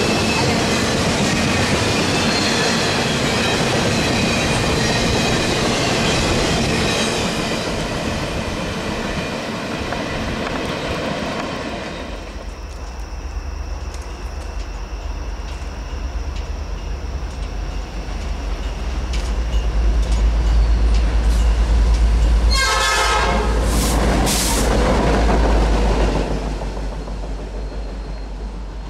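Diesel train rumble and rolling noise, easing off about twelve seconds in; then the deep engine rumble of passing diesel locomotives builds, with the horn sounding briefly twice a little over twenty seconds in.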